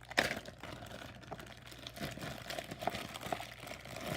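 Slime being squeezed and stretched by hand, making a continuous run of small clicks and crackles.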